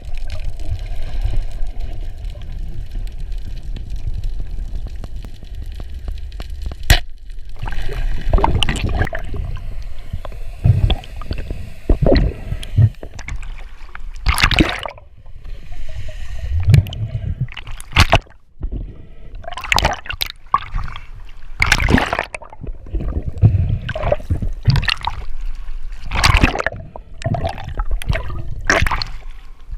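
Water sloshing and gurgling close to the microphone: a steady low rumble for about the first seven seconds, then a run of irregular splashes and surges.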